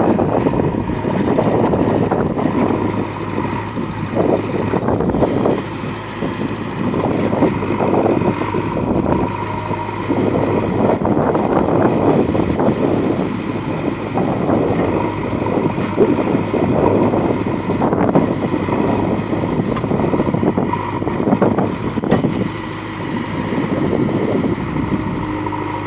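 Backhoe loader's diesel engine running steadily, its level rising and falling a little.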